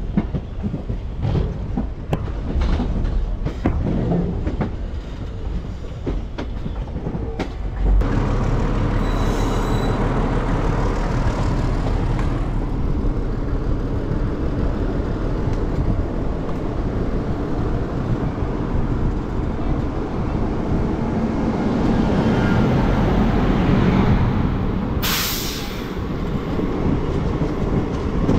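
Express train running, heard from the open door of an ICF sleeper coach: the wheels clatter over rail joints and points for the first several seconds, then settle into a steady rolling rumble. There is a brief loud hiss about three seconds before the end.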